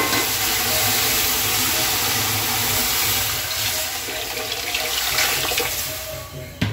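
Water poured in a steady stream into a hot kadai of ghee-roasted semolina, splashing and bubbling as it hits the pan, easing off near the end. This is the water being added to make suji halwa.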